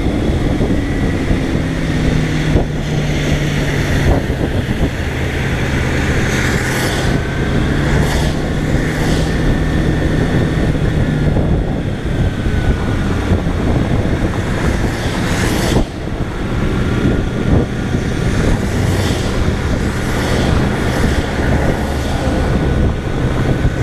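Kawasaki Ninja 250R's parallel-twin engine running steadily at cruising speed, mixed with wind rush and the hiss of tyres on a wet road.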